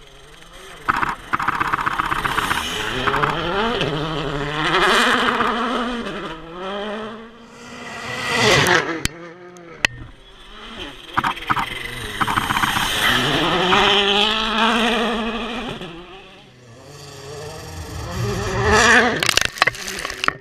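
Volkswagen Polo R WRC rally car's turbocharged 1.6-litre four-cylinder engine driven hard, revs climbing and dropping again and again through quick gear changes and lifts. It gets loud as the car comes close several times, with two sharp cracks about halfway through.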